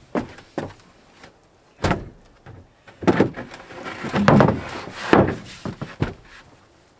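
Wooden bed-platform panels in a truck-bed camper being lifted, slid and set down: a series of knocks and scrapes, the sharpest knock about two seconds in and a busier run of them in the second half.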